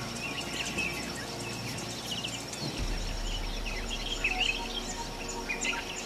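Several small birds chirping and twittering over a steady high insect trill.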